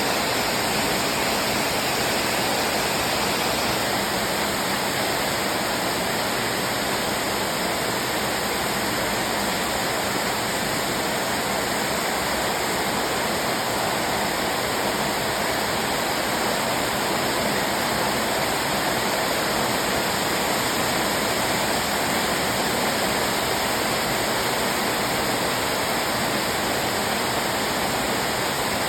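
Heavy downpour in a summer storm: a steady, unbroken rush of rain.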